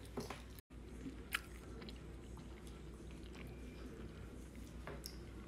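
Toddlers eating fruit: faint chewing with a few small clicks and taps, the sharpest about a second in, over a low steady hum. The sound cuts out for an instant just before the first second.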